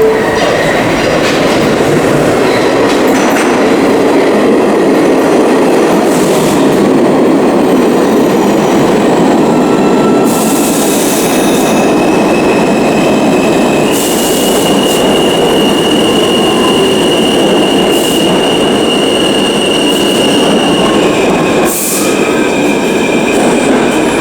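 Subway train running at speed: a loud steady rumble of wheels on track, with long high-pitched wheel squeals, one held for several seconds in the second half, and a few short hisses.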